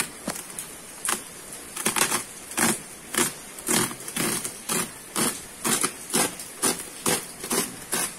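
A woven plastic sack wrapping is torn open by hand along its stitched seam, in a run of short rasping rips about twice a second.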